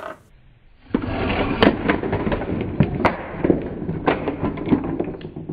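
Plastic toy motorbike crashing and tumbling against a toy wall, played back slowed down: a low, drawn-out clatter of many plastic knocks starting about a second in.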